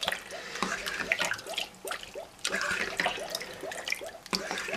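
Water poured from a small plastic pot over a guinea pig in shallow water in a stainless steel sink, splashing and trickling irregularly as the shampoo is rinsed out of its fur.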